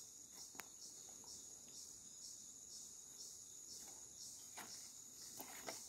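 Faint chirping of crickets, a steady high pulsing trill, with a few faint ticks.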